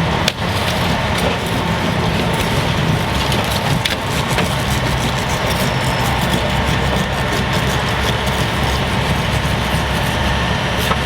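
Engine running steadily at idle, with one sharp knock shortly after the start.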